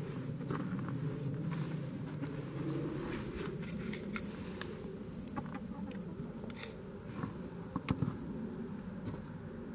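Footsteps on wood chips and dry leaves: soft, irregular crunching with scattered light clicks, and two sharper knocks close together near the end.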